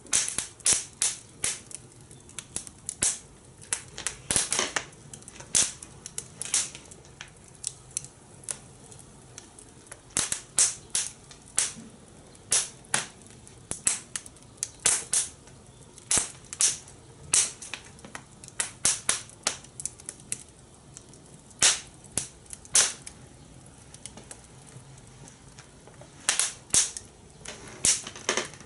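Fire in a fire pit crackling under grilling corn on the cob: irregular sharp snaps and pops, sometimes several in quick succession, over a low steady hiss.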